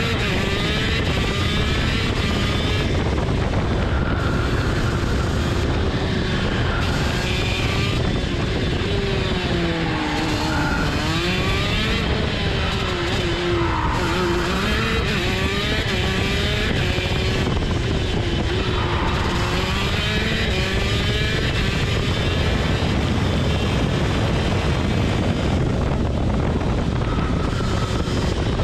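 TM 10c two-stroke kart engine heard onboard at racing pace, its pitch climbing repeatedly as it revs out and dropping back as it slows for corners.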